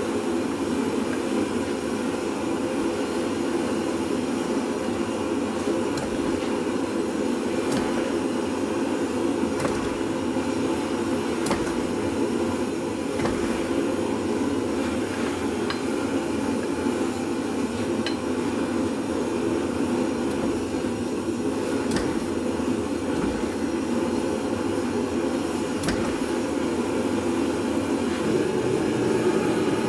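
Gas forge burner running steadily, a constant, even rush of flame with no change in level, broken only by a few faint light clicks.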